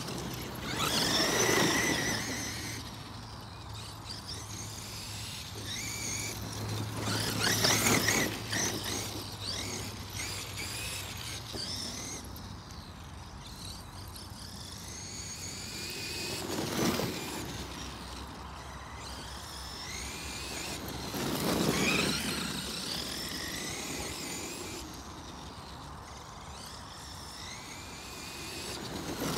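Traxxas E-Revo 2.0 RC truck on a 4S LiPo, running with one tyre blown out. Its brushless motor whines up and down in pitch with each burst of throttle. It is loudest in four passes, about 1, 8, 17 and 22 seconds in.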